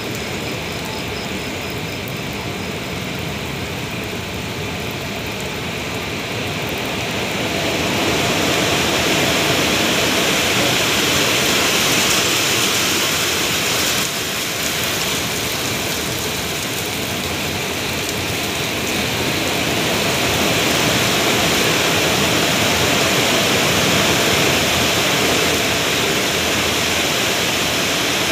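Steady hiss of heavy rain mixed with the running noise of a passenger train moving along a station platform, heard from the train's open doorway. The noise grows louder about eight seconds in.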